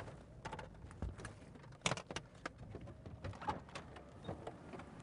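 Scattered faint clicks and knocks, the loudest about two seconds in, over a low vehicle rumble picked up by a police car's dash camera.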